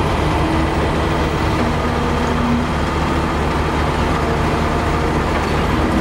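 Diesel engine of a Cat 315D hydraulic excavator running steadily under load while it lifts a block of concrete rubble, a continuous low engine drone.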